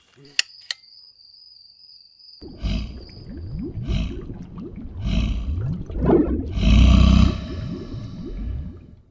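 Two sharp clicks and a thin high whine. Then, about two and a half seconds in, a deep crocodile roar sound effect starts. It rises and falls in rough rumbling surges, is loudest around seven seconds in, and fades out near the end.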